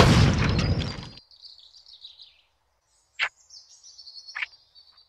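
A loud rushing noise, with a pitch that rises just at the start, cuts off abruptly about a second in. Faint birdsong chirps and trills follow, broken by three short sharp clicks.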